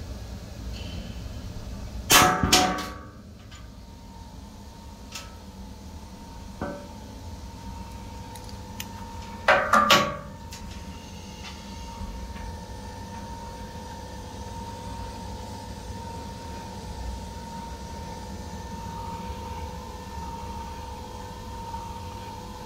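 Sharp metal knocks and clatter as the pull-off adhesion tester's actuator is lifted off the metal test dolly and the dolly is handled after the pull test. There is a loud cluster about two seconds in, a lighter knock near seven seconds, and another loud cluster of three knocks about nine and a half seconds in. Over a faint steady hum.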